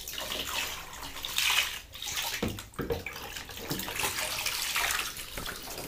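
Water poured from a plastic cup splashing into shallow bathwater, irregular and loudest about a second and a half in.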